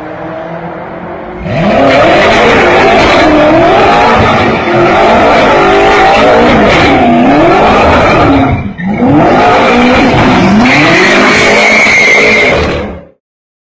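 BMW M6's twin-turbo V8 revving up and down over and over, with tyres squealing as the car spins donuts. The engine runs quietly at first, turns loud about a second and a half in, dips briefly about two-thirds of the way through, and cuts off abruptly near the end.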